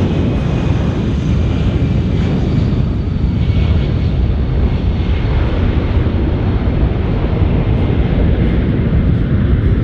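Four turbofan jet engines of a C-17 Globemaster III at takeoff power during a maximum-performance takeoff and climb: loud, steady jet noise weighted toward the low end.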